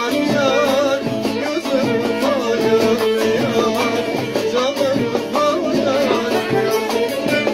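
A man singing a Turkish folk song with wavering, ornamented held notes, accompanying himself on a plucked bağlama (long-necked saz).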